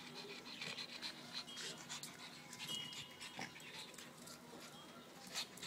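A small dog panting faintly in quick, short breaths, with one brief louder noise a little before the end.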